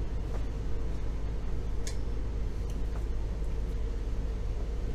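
Steady low drone of the trawler yacht's inboard diesel engine running under way, with a few faint ticks about two and three seconds in.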